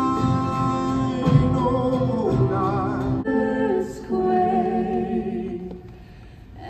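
Christmas carols sung live by a church worship band: a singer with guitar and instruments, with sustained notes and vibrato, ringing in a large hall. The music breaks off abruptly about three seconds in, a different passage follows, and it drops low shortly before the end.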